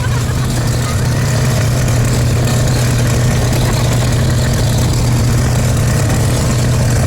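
An engine running steadily, with a constant low hum and no change in speed.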